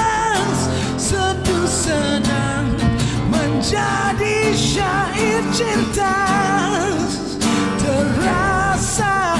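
Acoustic pop ballad: a singer holding long notes with vibrato over acoustic guitar.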